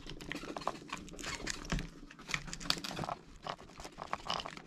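Plastic pry card crackling and scraping as it is worked under a glued 2015 MacBook Pro Retina battery cell, parting the softened adhesive: a dense run of small clicks and crackles.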